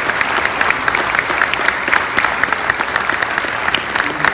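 Congregation applauding: many hands clapping, dense and steady.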